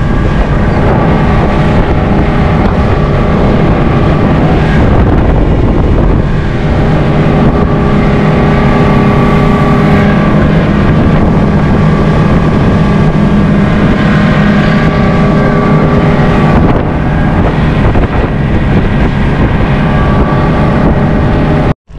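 A motor running steadily at a constant pace, loud and close, with wind on the microphone; it cuts off suddenly near the end.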